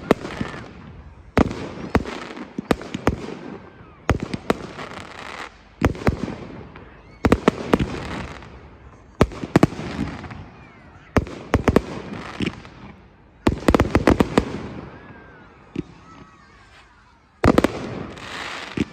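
Fireworks display: aerial shells bursting with sharp bangs every second or two, some in quick clusters of pops, each followed by a fading rumble and echo.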